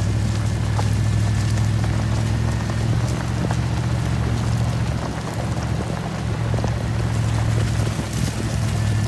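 Vehicle engine running steadily with a low drone while driving a dirt trail, with scattered small clicks and knocks over it.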